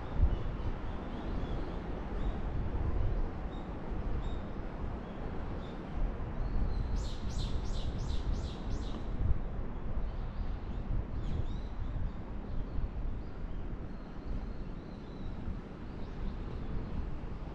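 A small bird calling: a quick run of about six high chirps about seven seconds in, with fainter chirps scattered before and after. Under it runs a steady low outdoor rumble.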